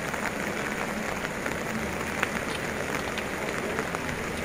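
Steady rain, a continuous hiss with scattered sharp drop ticks.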